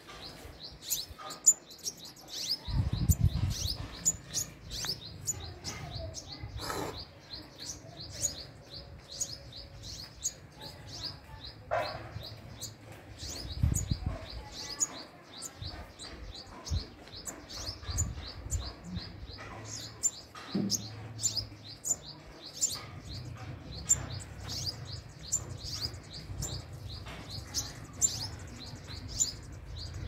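Sunbird calling: rapid, repeated high, thin chirps, a few each second, kept up without a break.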